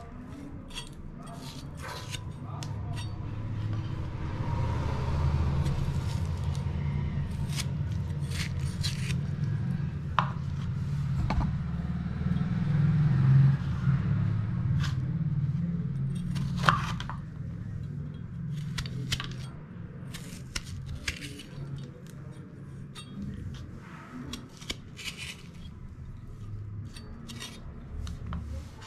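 Kitchen knife cutting bitter gourd on a wooden chopping board: irregular clicks and taps of the blade on the board and light scraping as the seeds are cut out. A low rumble sits under it, loudest in the middle.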